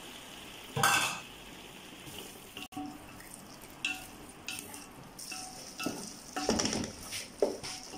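Wooden spatula stirring a thick prawn masala in an aluminium pot, in irregular scraping strokes against the pot, with the masala sizzling steadily underneath. One louder stroke comes about a second in, and the strokes come thicker and louder near the end.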